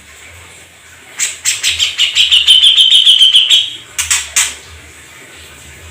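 A songbird singing a fast trill of many short repeated notes for about two and a half seconds, then two sharp single notes.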